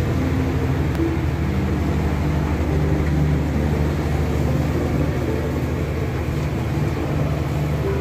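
Steady drone of a vessel's engine under way, with wind and sea noise over it.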